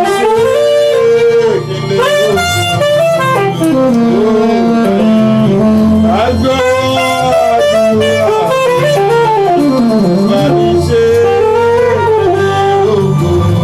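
Instrumental break in a praise band's music: a lead melody instrument plays a flowing solo line with pitch bends and slides over a steady bass accompaniment.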